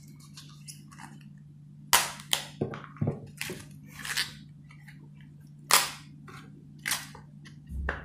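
Crisp snaps and cracks of outer leaves being pulled off a wet red cabbage by hand, about eight sharp snaps at irregular intervals, over a steady low hum.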